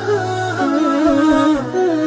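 Background music: a melodic line that glides and bends between notes over a steady low drone.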